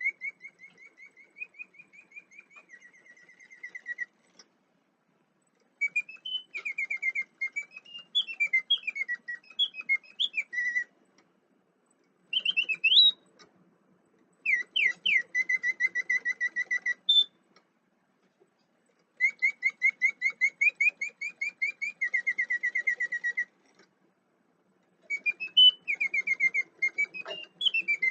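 A 50-year-old lever-cranked mechanical singing bird playing its whistled song. It gives fast trills and rising-and-falling warbling glides in six phrases of a few seconds each, with short silent pauses between them.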